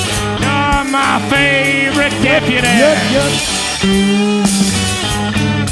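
Psychedelic rock band playing: electric guitars over bass and drums, with a bending, wavering lead line about halfway through.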